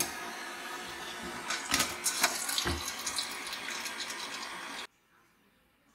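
Torch-heated steel strap plunged into a can of oil, a stage of oil blackening. The oil sizzles with a steady hiss and a run of sharp crackles and pops in the middle. The sound cuts off suddenly near the end.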